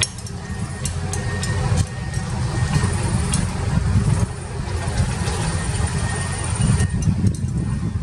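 Excavator's diesel engine running steadily at a low rumble, with scattered light metallic clicks and ticks over it.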